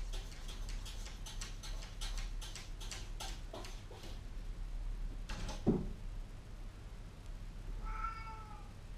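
Domestic cat giving one short meow near the end, after a quick run of light clicking or scratching sounds and a single thump.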